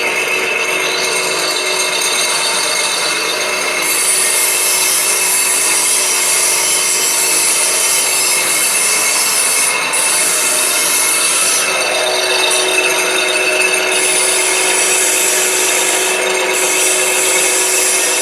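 Iron pipe bending machine running with a steady mechanical rubbing, scraping noise as it works. A higher-pitched part of the noise cuts in about four seconds in and drops out briefly a few times.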